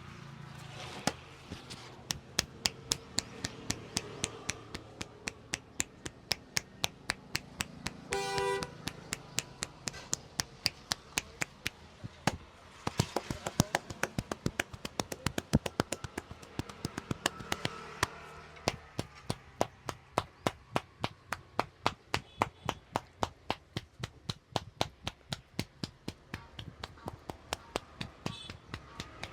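Rapid, even hand strikes of a percussive Indian head massage: the barber's hands tapping and slapping the head about three to four times a second, keeping up a steady rhythm with only brief pauses.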